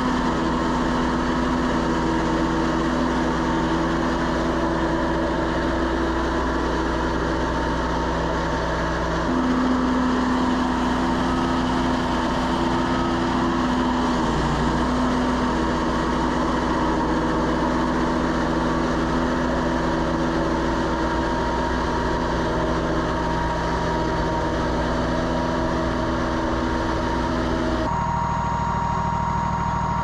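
Wood-Mizer LT40 portable bandsaw mill running steadily under power, its band blade cutting a board off a log. The engine note shifts about nine seconds in, and the sound changes abruptly near the end.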